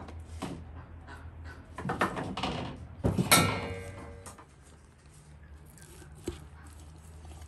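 Metal utensils scraping and clattering in a steel bowl. About three seconds in comes a loud clank that rings on for about a second, and a single sharp tap follows a few seconds later.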